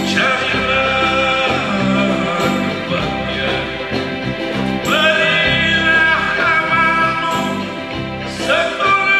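Live band music: a male singer holding long sung phrases over electric guitar, bass guitar and hand drums.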